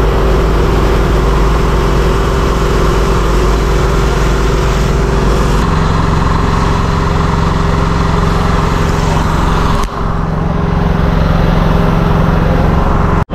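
City road traffic at a busy junction, with a steady engine hum from idling vehicles under the noise of passing cars. The hum changes pitch about halfway through, and the sound cuts off briefly twice, about ten seconds in and again near the end.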